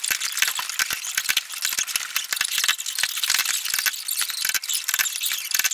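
Continuous rapid rattling and jangling: many small hard clicks close together, with no low rumble underneath.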